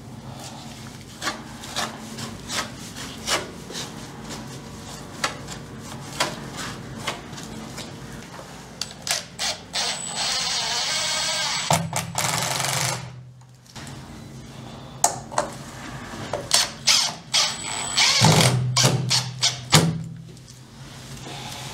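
A Makita cordless power tool runs for a few seconds near the middle and again briefly near the end. Scattered sharp clicks and knocks from handling tools and material on the fiberglass come between the runs.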